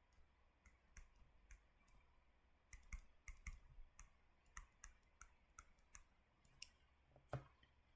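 Near silence broken by faint, irregular clicks and taps of writing on a digital screen, a few early, more in the middle, and one louder click near the end.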